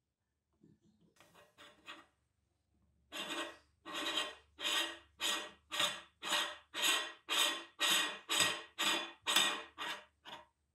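Cast-iron retaining ring of an antique Husqvarna meat grinder being screwed by hand onto the grinder's threaded barrel, with metal grating on metal threads. A few faint scrapes come first, then a steady run of rasping strokes, a little under two a second, until near the end.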